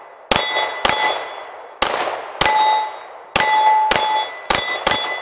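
Glock 19 Gen 4 9mm pistol fired eight times in an uneven string, with a ringing clang of the steel plate targets after the shots.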